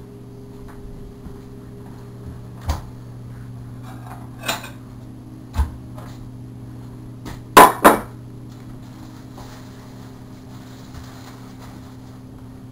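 Kitchen clatter of things being picked up and set down: scattered single knocks and clinks, the loudest a pair of sharp bangs close together about seven and a half seconds in, over a steady low hum.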